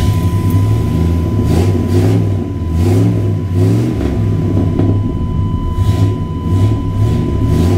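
Chevrolet 454 big-block V8 with throttle-body fuel injection idling steadily just after a restart, very smooth, with a slight waver in the rumble. It is an engine that will not stay running at idle and stalls out despite its newly replaced throttle body unit.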